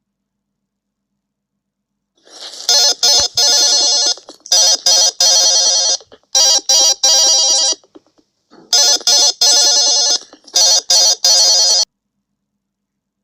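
Android 1.6 Donut's alarm clock going off: a loud, trilling, phone-like electronic ring in repeated bursts of about a second and a half. There is a longer pause about halfway through, and the ring cuts off sharply near the end.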